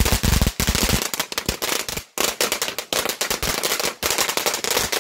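A firework crackling: a dense, rapid run of sharp cracks, broken by a brief pause about two seconds in.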